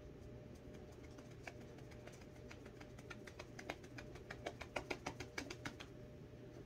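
Hands patting and tapping a bloated bare belly: a run of short, soft pats starting about a second and a half in and thickest between about four and five and a half seconds in, over a faint steady room hum.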